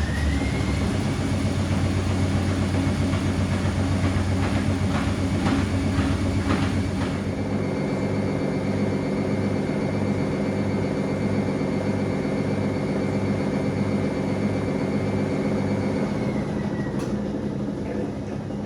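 Gorenje PS 060 A washing machine spinning: a steady high motor whine from its Končar motor over the rumble of the drum. A few seconds in there is a run of rattling knocks, then a regular throb about twice a second. Near the end the whine drops slightly and fades as the spin starts to slow.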